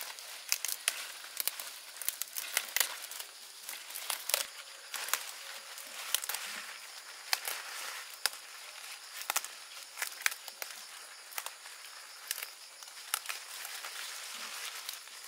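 Leafy garden plants rustling and stems snapping as greens are picked by hand: irregular sharp clicks and crackles over a constant rustle of leaves.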